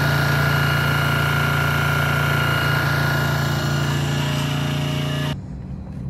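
Road roller's engine running steadily at low revs. It cuts off abruptly about five seconds in, leaving only a faint low hum.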